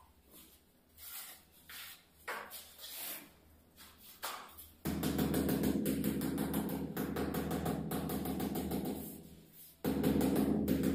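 A ceramic floor tile being settled into a wet mortar bed. A few light knocks and scrapes come first. About five seconds in, a loud rapid rattling buzz starts and runs for about five seconds, stops abruptly, then starts again near the end.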